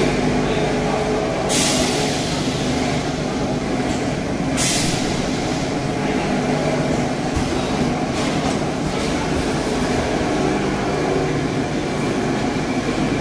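Vertical form-fill-seal packing machine for solid-and-liquid food running with a steady mechanical drone. Two hissing bursts of about a second each come about one and a half seconds and four and a half seconds in.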